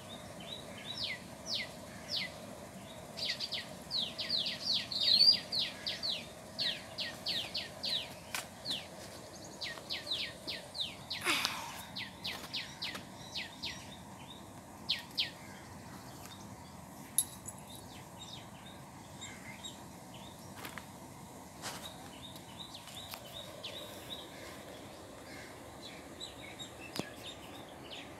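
House sparrows chirping: a quick run of short repeated chirps through the first half, thinning to scattered chirps later. A short sharp noise sounds about eleven seconds in, over a low steady background hum.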